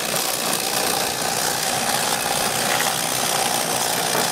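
Electric fillet knife running steadily with a constant hum and a buzz from its reciprocating blades as they cut a fillet from a large crappie.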